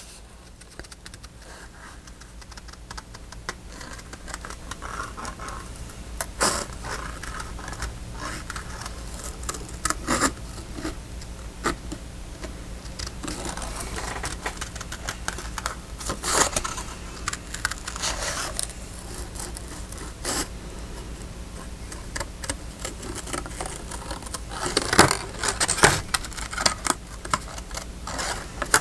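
Scissors fussy-cutting around the edge of a paper card: irregular small snips and paper rustling, with a cluster of sharper snips near the end.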